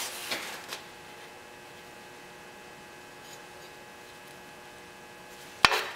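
Quiet workshop room tone with a steady electrical hum and a couple of faint clicks early on. Near the end comes one sharp knock with a brief ring.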